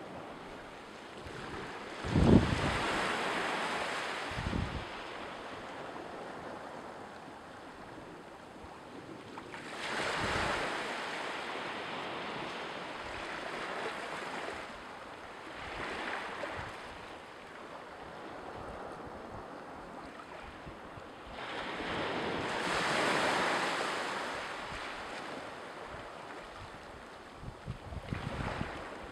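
Sea waves washing onto the shore in slow swells that rise and fall every several seconds. Wind buffets the microphone, with a sharp thump about two seconds in that is the loudest moment and a smaller one a couple of seconds later.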